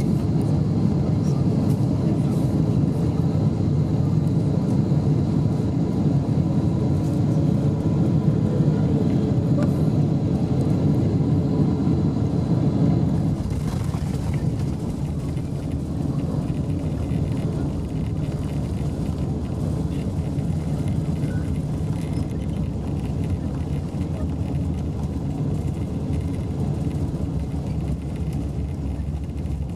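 Cabin noise of a Boeing 747-8 landing: a steady rumble of engines and rushing air. About halfway through, around touchdown, the noise drops and settles into a quieter, steady rumble as the jet rolls out on the runway.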